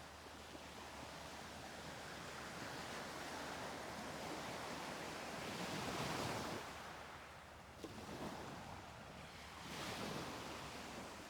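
Ocean surf breaking on a beach, the wash of the waves swelling and ebbing, with a louder surge about six seconds in and another near the end.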